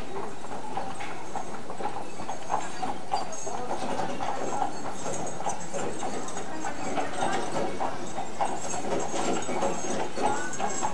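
Horse-drawn wagon rolling: horse hooves clip-clopping over a steady rattle of wheels.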